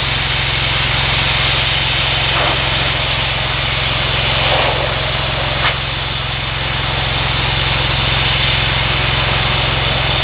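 Gas-engine pressure washer running steadily, its engine drone under a constant hiss of water spray, with a couple of brief ticks.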